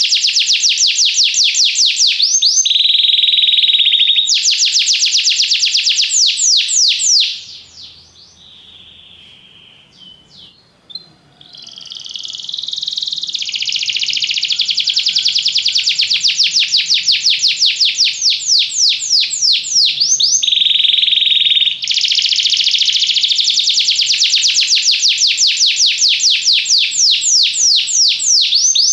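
Domestic canary singing: long rolls of fast, rapidly repeated high notes with a few steady held whistles. The song breaks off about seven seconds in and starts again some five seconds later.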